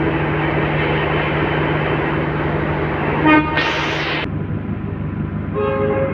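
Train horn giving two short toots, the first about three seconds in and the second, higher one near the end, over the steady rumble and hum of the train running past. A brief burst of hiss follows just after the first toot.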